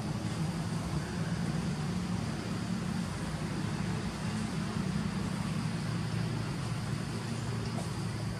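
A motor engine running steadily off-screen, a low even hum with no change in pitch.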